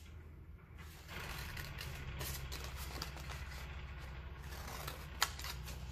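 Sticky tape being pulled off its roll: a steady crackling rasp that starts about a second in, with one sharp click near the end.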